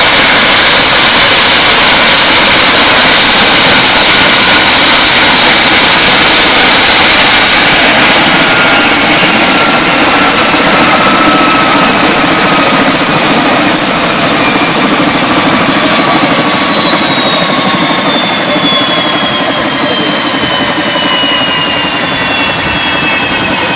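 Turbine helicopter idling on the ground with its rotor turning: a loud rush of turbine and rotor noise. Several whines fall steadily in pitch as the engines wind down.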